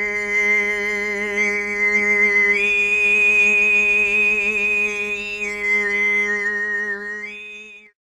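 Altai overtone throat singing: a steady low sung drone with a high, whistle-like overtone melody above it. The whistle tone steps up about two and a half seconds in, slides back down around five and a half seconds, rises again near the end, and the sound cuts off suddenly.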